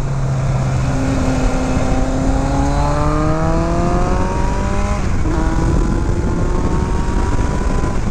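1982 Kawasaki GPZ1100's air-cooled inline-four, fitted with a Kerker exhaust, pulling hard under acceleration, its pitch rising steadily for about four seconds. About five seconds in it drops at an upshift, then rises again. Steady wind and road noise run underneath.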